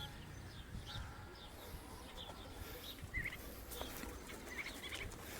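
Small birds chirping: scattered short chirps and calls over a faint background hiss, with a few faint clicks.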